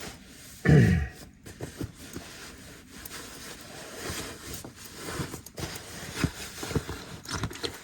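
Clothes being handled and stuffed away, with fabric rustling and light scraping, and a short vocal sound with falling pitch about a second in.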